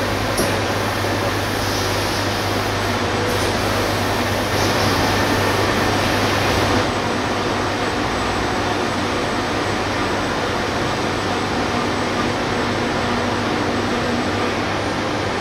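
Steady hum and whir of a Unisign Univers 4000 CNC machining centre running with its spindle head traversing. A high hiss drops away about seven seconds in.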